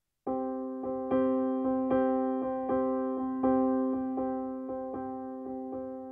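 Background music: a gentle keyboard piece of evenly repeated notes, each fading after it is struck, starting about a quarter second in.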